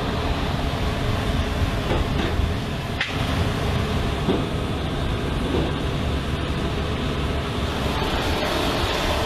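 Steady engine rumble and hiss of vehicles and aircraft machinery on an airfield flight line, with a sharp click about three seconds in.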